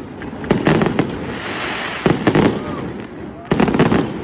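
Fireworks going off in three clusters of rapid bangs, about a second and a half apart, with a crackling hiss between them.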